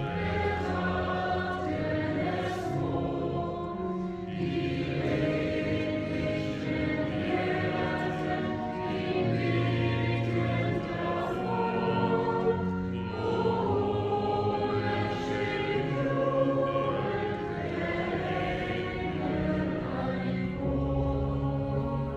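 Choir singing a hymn, with long held low notes underneath.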